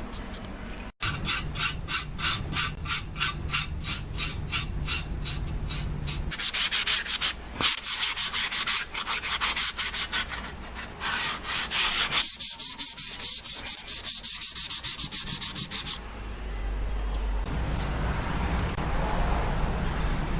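Rapid back-and-forth scrubbing of a metal part with an abrasive by hand, about three to four strokes a second. It stops about 16 s in and gives way to a steady low hum.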